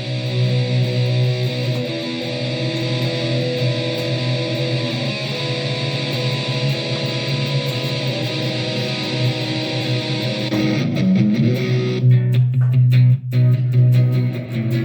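Electric guitar played through a Donner Arena 2000 multi-effects processor. Notes are held and left ringing for most of the time, then come a slide and a run of shorter, choppier notes near the end.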